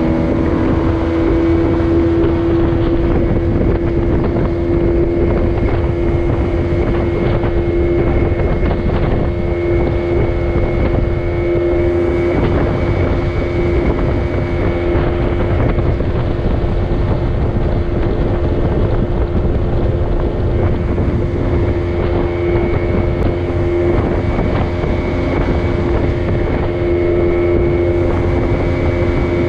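Small boat's outboard motor running at a steady cruise, one constant drone that does not change in pitch, with wind buffeting the microphone.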